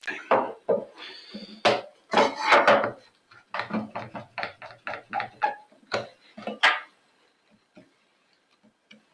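Hand tools knocking, tapping and scraping on a wooden workbench while the edges of a housing cut in a softwood board are marked out: a busy run of separate knocks and clicks that thins to a few faint ticks for the last two seconds.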